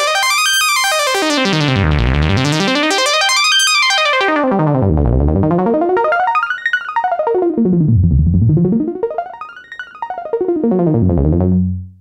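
Sequential OB-6 analog synthesizer playing a fast arpeggiated sequence, straight from the synth without added effects, its notes sweeping down into the bass and back up about every three seconds. The pattern thins out about halfway through and cuts off sharply near the end.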